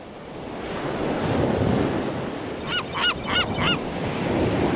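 Ocean surf washing steadily, fading in over the first second. About three seconds in there are four short bird calls in quick succession, each rising and falling in pitch.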